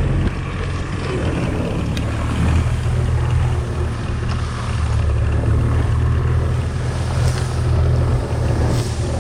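Golf cart running steadily while driving, a continuous low engine hum, with wind buffeting the microphone.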